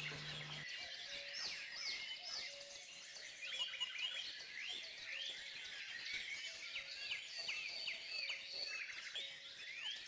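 Faint chorus of small songbirds: many quick, overlapping chirps and trills, high in pitch.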